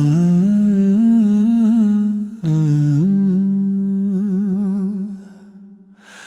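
A voice humming a wordless melody in two long phrases: a short break about two and a half seconds in, and a wavering vibrato on the second phrase before it fades out near the end.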